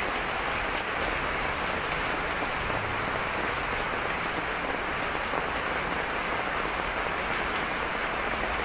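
Heavy typhoon rain pouring steadily onto wet paved ground, a constant even hiss.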